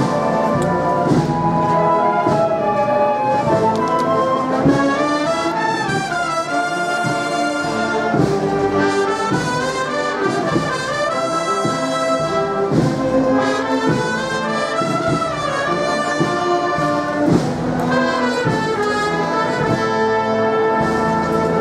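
Wind band (banda de música) playing a processional march: trumpets and trombones carrying the melody over drum strokes.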